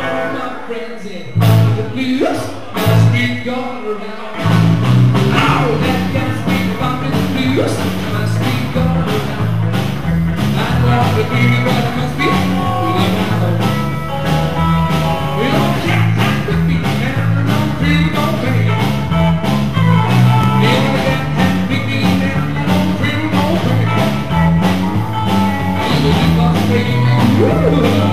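Live band with electric bass, hollow-body electric guitar and drums. A few separate hits come in the first four seconds, then the full band plays on steadily with a prominent bass line.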